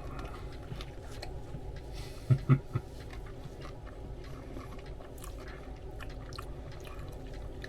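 A person chewing a mouthful of Subway sub, with wet mouth clicks. There are two short, louder low sounds about two and a half seconds in, over a steady low background hum.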